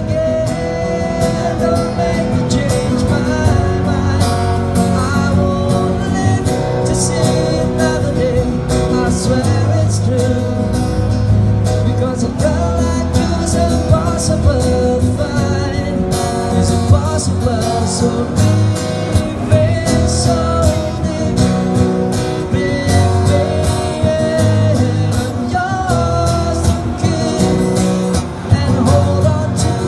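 Two acoustic guitars played together with a man singing over them, a steady song throughout.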